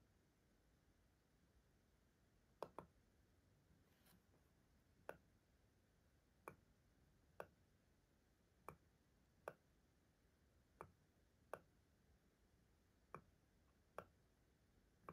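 Buttons of an IKEA STYRBAR smart remote clicking under the thumb, about a dozen single presses roughly a second apart, one of them a quick double click, stepping the paired TRADFRI LED bulb's light.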